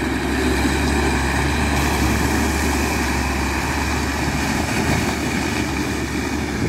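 Loaded diesel dump truck driving past, its engine running steadily with a low rumble.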